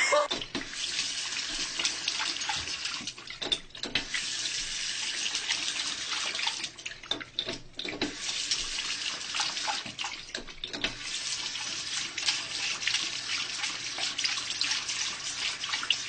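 Water running from a tap and splashing, a steady hiss that starts suddenly and is broken by a few brief dips.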